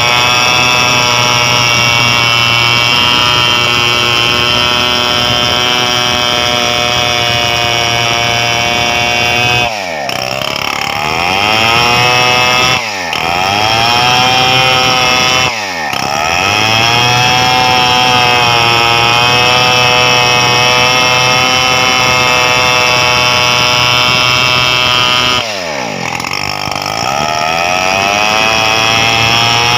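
Stihl 070 two-stroke chainsaw cutting gmelina wood into boards, running at high revs under load. Several times the engine note dips and then climbs back up as the throttle is eased and reopened.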